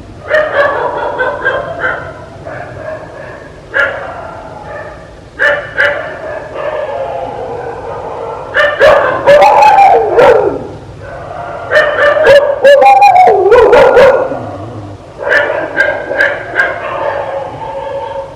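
Dog barking and yipping in repeated short bursts, with some higher whining yelps that slide down in pitch near the middle.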